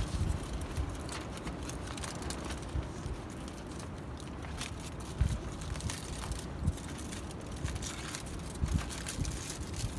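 Aluminium foil crinkling and rustling as a foil-wrapped food parcel is unwrapped by hand, over a steady rushing background, with a few low thumps.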